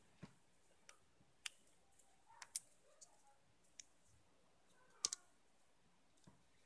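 Faint, scattered clicks and taps from hands wrapping a roll of insulating tape around a metal casting trigger on a rod butt, with a sharp double click about five seconds in.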